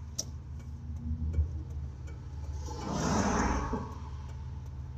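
Steady low engine and road drone inside a moving car, with a short click near the start. About three seconds in, an oncoming box truck passes, a swelling rush of noise that lasts about a second and fades.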